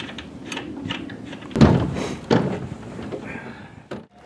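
Knocks and thuds of gear being handled aboard a small fibreglass sailboat, with two loud hollow thuds about a second and a half and two and a quarter seconds in, and lighter clicks around them.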